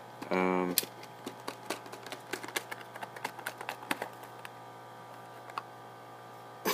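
Small irregular clicks and taps of hands handling a Bluetooth speaker's box packaging and the parts inside it, a few per second, thinning out later on. A brief hum of voice comes just after the start.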